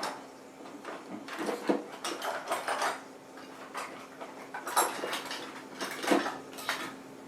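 Ice cream scoop scraping and knocking against a container as it scoops up thick spackle, in a few irregular bursts of scrapes and clicks. A faint steady hum runs underneath.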